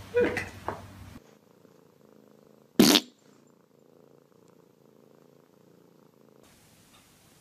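A cat purring faintly, close up. About three seconds in, one sudden, very loud short sound cuts through it. A few short knocks and rustles come before the purring, in the first second.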